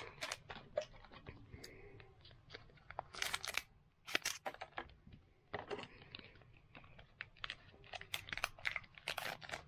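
Foil Pokémon booster pack wrapper crinkling as it is handled and cut open with scissors: sharp crackles and snips in several short clusters.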